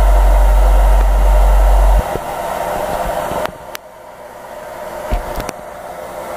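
Hair dryer blowing on damp vegetable-tanned leather to dry it. For the first two seconds the air buffets the microphone with a heavy rumble that stops suddenly. After that the blowing is lighter and shifts in level, with a few short knocks.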